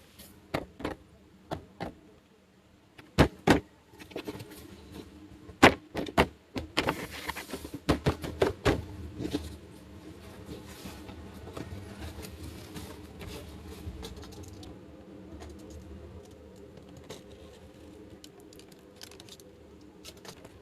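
Small plastic toy pieces being handled, clicking, tapping and clattering in sharp separate knocks over the first nine seconds, then only light occasional ticks over a faint steady hum.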